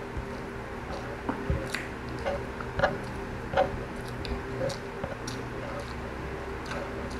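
A person chewing food close to the microphone: wet, squishy mouth smacks at irregular intervals over a faint steady hum.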